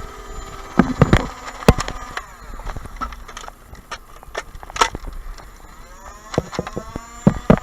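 Motorised flywheel Nerf blaster spinning up with a rising whine, among scattered sharp clicks and knocks.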